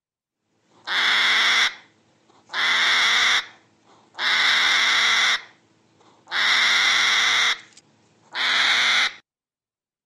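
Hedgehog hissing: five loud, noisy hisses, each about a second long, with short pauses between them.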